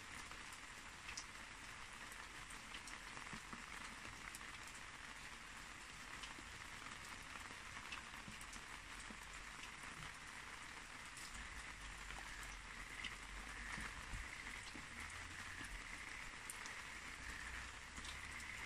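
Faint steady hiss with scattered small soft ticks and crackles as steel tweezers press moss into a bonsai pot.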